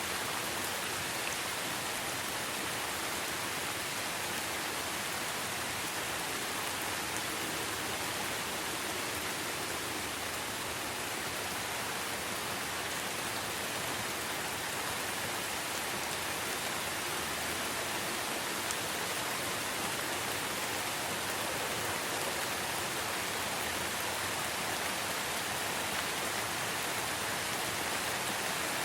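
Steady rain falling and pattering on surfaces, an even hiss with no change in level.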